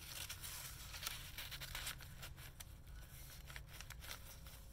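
Paper rustling and crinkling as stiff, aged journal pages and loose tucked paper pieces are handled and turned, busiest in the first two seconds and then quieter with scattered small crinkles.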